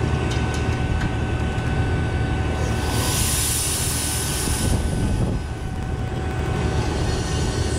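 Refrigerant recovery machine running steadily, pulling a vacuum on the recovery cylinder, a low motor drone with a faint whine. About three seconds in, a rush of hiss lasts about two seconds.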